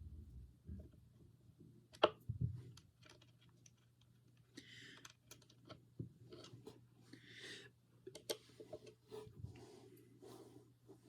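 Skate T-tool socket clicking and scraping on a longboard truck's mounting nuts and bolts as they are loosened: scattered small metal clicks, a sharp click about two seconds in, and two short rasping turns around five and seven seconds in.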